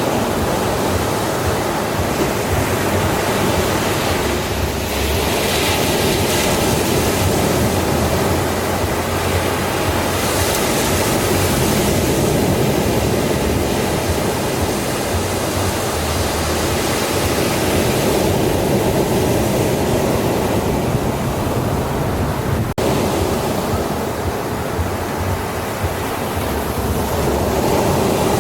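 Ocean surf on a beach: a steady rush of waves that swells brighter now and then as waves break.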